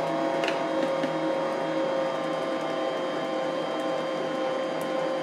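Electric mixer running at a steady speed, beating pumpkin bread batter, with an even motor whine.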